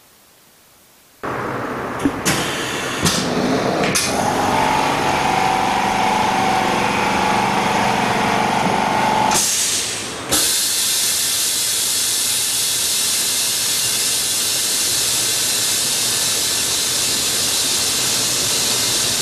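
A machine hum with a few sharp clicks. About ten seconds in it gives way to a loud, steady hiss of compressed air venting from a JiuTu OCA bubble-remover autoclave as its timed pressure cycle ends.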